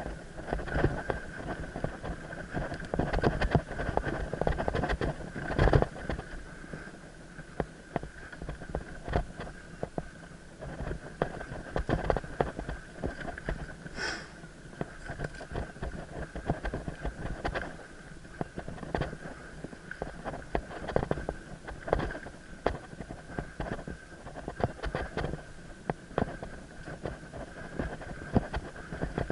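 Mountain bike ridden fast over forest singletrack, heard from a head-mounted camera: tyres running over dirt and roots with frequent knocks and rattles from the bike and camera mount on the bumps, the hardest jolt about six seconds in. A steady faint high whine sits underneath.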